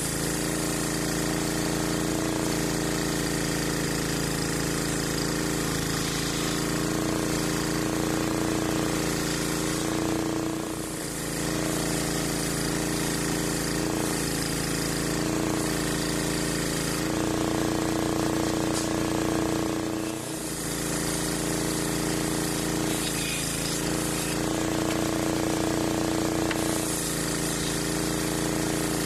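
Large homemade circular saw bench ripping a thick block of old waru (sea hibiscus) timber lengthwise into boards, the blade and its drive running loud and steady. Twice the pitch sags briefly, about ten and twenty seconds in.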